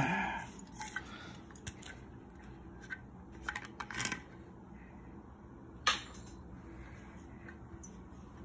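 Cap of a glass Jack Daniel's whiskey bottle being twisted and worked open by hand: a scatter of small clicks and scratches, with a sharper click about six seconds in.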